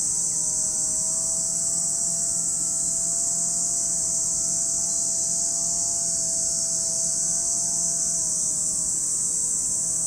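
Cicadas singing in a steady, high-pitched chorus with no breaks. Underneath, a fainter steady droning hum holds its pitch and dips briefly near the end.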